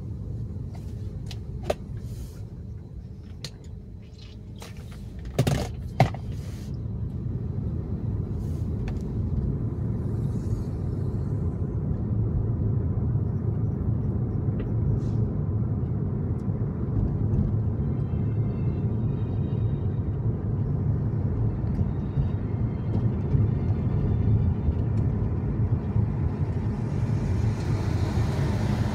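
Car engine and tyre noise heard from inside the cabin: a low rumble that grows louder over the first several seconds as the car pulls away from a light, then holds steady at city driving speed. A few sharp clicks and knocks come early, the loudest pair about five to six seconds in.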